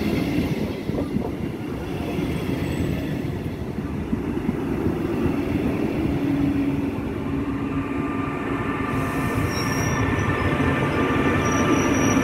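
Passenger train of double-deck coaches rolling past at low speed, wheels rumbling on the rails. In the second half the electric locomotive pushing at the rear draws near, and steady whining tones rise in over the rumble, growing louder toward the end.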